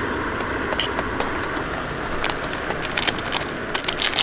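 Portable gas camping stove burner hissing steadily under a pot, with scattered light clicks of chopsticks against the metal pot.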